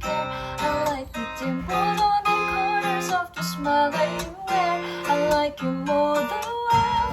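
Background music: guitar playing, with a melody line over it.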